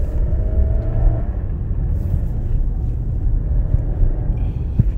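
Cabin noise of a 2016 Nissan Rogue on the move: a steady low road and engine rumble, the engine note rising briefly about a second in, and a single thump near the end as it goes over a bump. There is no rattle, because the loose heat shield that caused it has been secured.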